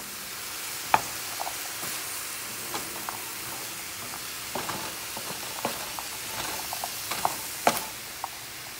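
Chopped carrots, celery and green onion sizzling as they sauté in a skillet, with scattered clicks and knocks of a utensil stirring them in the pan. The sharpest knocks come about a second in and near the end.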